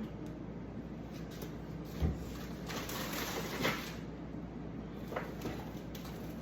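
Groceries being handled and put away in a fridge: a dull thump about two seconds in, then rustling and a few light knocks.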